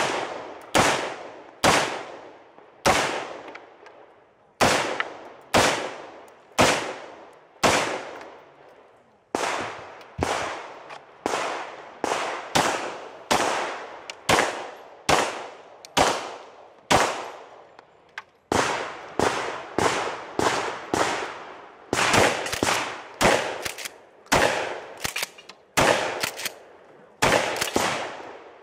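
A string of gunshots from a competition stage run with a Glock pistol and an AR-15 rifle, each shot ringing off briefly. They come about one a second at first, then faster and in quick pairs over the last several seconds.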